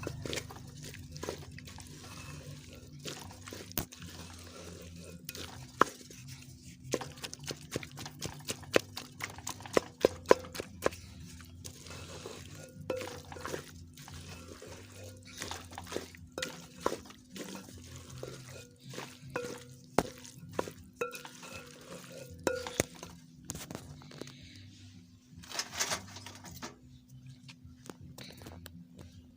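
Dishes and utensils clinking and knocking, with water being poured, over soft background music.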